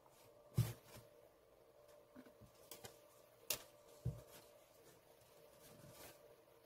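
Faint handling sounds of a plastic power bank and a utility knife: a few soft clicks and knocks, the sharpest a little past the middle, as the knife blade is brought to the seam of the end cap to begin prying the case open.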